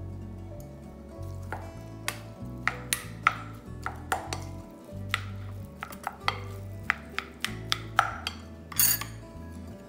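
A plastic rice paddle stirs and knocks against a glass bowl as cooked rice is mixed with a mushroom and bamboo shoot stir-fry, giving a string of irregular clicks and taps. Background music with a steady bass line plays underneath.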